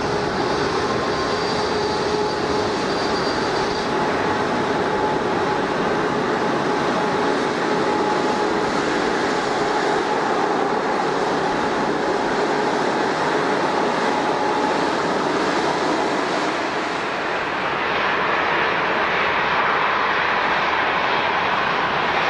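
Jet airliner engines running steadily, a dense continuous noise with a steady whine running through it. The sound shifts near the end, with less hiss at the top and more energy in the middle.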